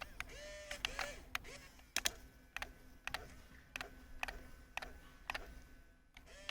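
Small electric motors of a radio-controlled model excavator whining up and down in short spurts, with sharp plastic clicks and rattles throughout.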